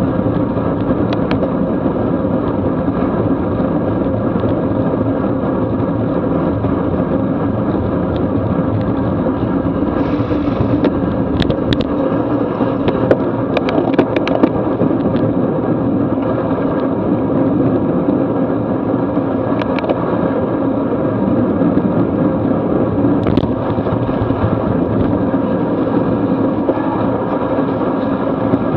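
Steady wind rumble and tyre hiss on a wet road, picked up by a camera mounted on a road bike racing at about 24 mph. A scatter of sharp clicks comes about halfway through.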